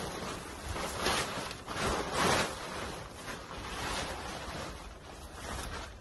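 A tarp rustling and crinkling as it is handled and spread out on the ground, in uneven surges, loudest about two seconds in.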